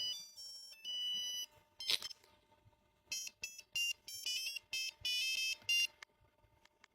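A Nokia mobile phone's built-in speaker playing old monophonic ringtones as a melody of single electronic beeping notes. One tune plays first; after a pause of about a second and a half, a quicker run of short notes follows and stops about a second before the end.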